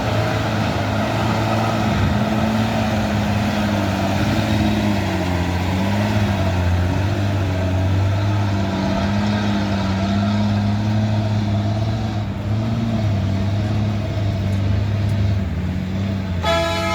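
Heavy vehicle engine running at low speed with a steady low drone whose pitch wavers slightly as it creeps along. A loud horn sounds near the end.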